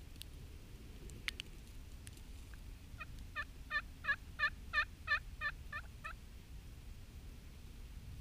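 Wild turkey yelps: a series of about ten yelps, about three a second, growing louder then fading. A single sharp click comes about a second in.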